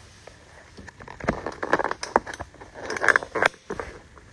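A run of small, irregular clicks and rattles in two clusters, about a second and a half in and again near three seconds. The stand mixer is not running.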